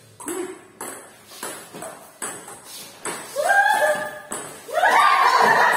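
A quick table-tennis rally: the ping-pong ball clicking sharply off the paddles and table top several times. From about three seconds in, two loud, high-pitched shouts from a player follow, the second the louder and longer.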